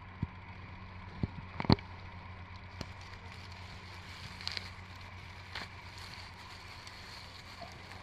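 Light rustling and a few sharp clicks as a hand reaches through moss and leaf litter to grip a birch bolete's stem. The loudest click comes a little under two seconds in, over a steady faint hum.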